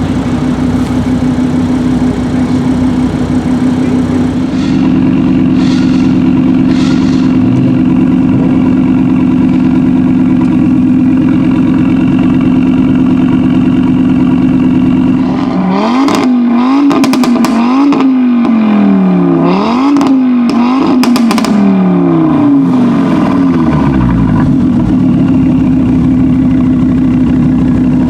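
Audi RS3's turbocharged five-cylinder engine through a Milltek exhaust idling steadily. A little past halfway it is revved about five times in quick succession, with sharp crackles and pops from the exhaust as the revs drop, then it falls back to idle.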